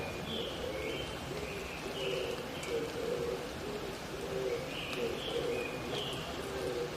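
Oriental turtle dove cooing in repeated low phrases, with short higher notes from another bird near the start and again about five seconds in, over the steady hiss of a wet forest after rain.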